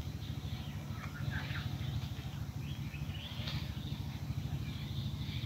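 Outdoor ambience: birds chirping and calling in scattered short phrases over a steady low rumble.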